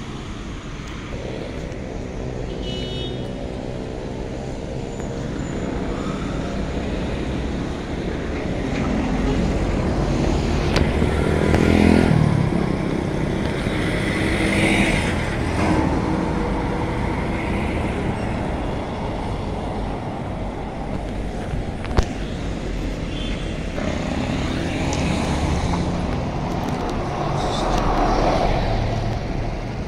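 City street traffic: road vehicles running and passing, swelling twice as vehicles go by, the second time a bus passing close near the end. A single sharp click about two-thirds of the way through.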